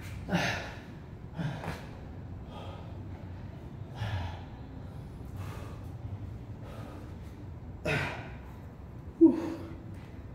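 A man breathing hard to recover right after 100 burpees: gasping breaths every second or two. One sharper, louder sound stands out near the end.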